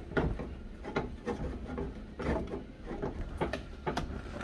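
A flat wooden spatula stirs and turns thick mashed-potato fufu dough in a stainless saucepan, scraping and knocking irregularly against the pot.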